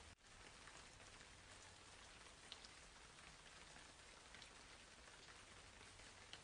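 Near silence: a faint steady hiss with scattered soft ticks, rain-like, that cuts out for a moment just after the start.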